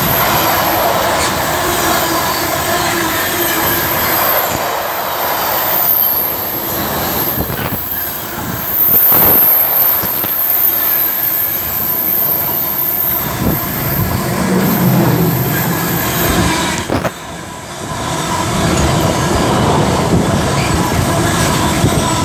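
Container wagons of a Freightliner intermodal freight train running past at speed, a steady rumble of wheels on rail with a high-pitched wheel squeal over it. The loudness dips briefly about three quarters of the way through.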